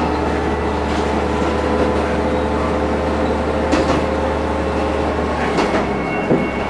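Diesel railcar running along the line, heard from beside the driver's cab: a steady low engine drone under the running noise, with a few sharp clacks of the wheels over the track in the second half.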